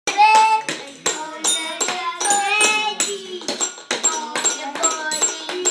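Young children singing a song while tapping toy xylophones with mallets: frequent, irregular bright metallic plinks over the childish singing.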